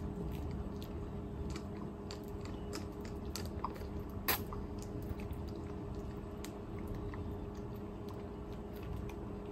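Small wet mouth clicks and smacks of someone sucking on a hard candy cane, with one sharper click about four seconds in.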